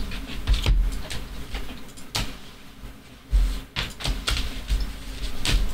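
Irregular light taps, clicks and dull thumps of trading cards being handled and set down on a table.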